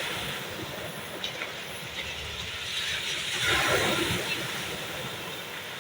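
Sea surf washing in: a steady rush of water noise, with one wave breaking and swelling about three and a half seconds in.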